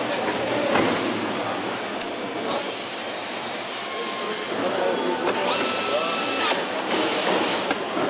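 Pneumatic air tools on a truck assembly line: a hissing burst about two and a half seconds in lasting some two seconds, then a shorter whirring burst near six seconds, over a steady din of factory noise with scattered clicks.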